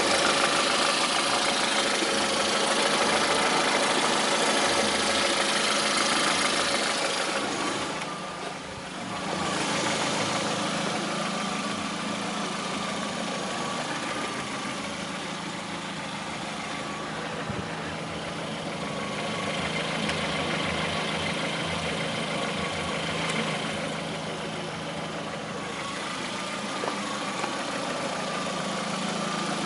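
Lada Priora's VAZ-21126 1.6-litre 16-valve four-cylinder engine idling with a knock. The sound dips briefly about eight seconds in, then returns to a steady level.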